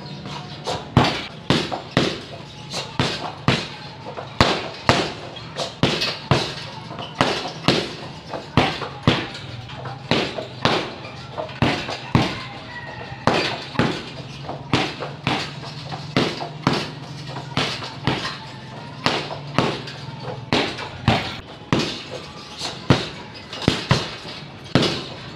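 Kicks, knees and punches landing on a teardrop-shaped heavy bag in a continuous flurry, one to two sharp strikes a second.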